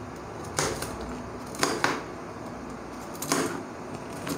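Kitchen knife slicing a bitter gourd into thin rings on a plastic cutting board: about half a dozen sharp taps of the blade through the gourd onto the board, at an uneven pace.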